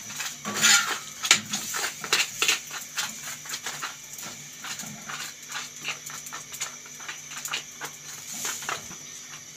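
A spoon spreading garlic mayonnaise and ketchup over a pita bread on a plate: irregular scrapes and taps, over a steady hum.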